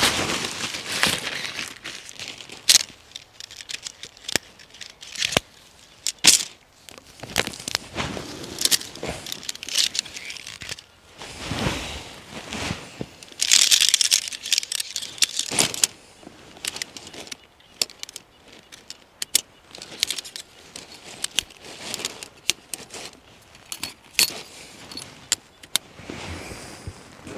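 Camping gear being handled in snow: fabric rustling as bedding is shaken out and spread, with scattered small clicks and rattles of gear and a longer rustle about halfway through.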